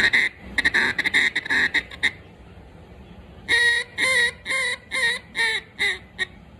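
Duck call with a bois d'arc (Osage orange) insert being blown during tuning: a fast run of short chattering notes, a pause of about a second and a half, then a string of seven quacks that get shorter and closer together toward the end.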